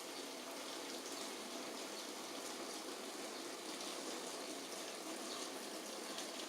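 Steady rain falling, an even hiss with a faint patter of separate drops.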